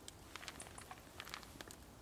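Faint scattered clicks and rustles, irregular and with no steady rhythm.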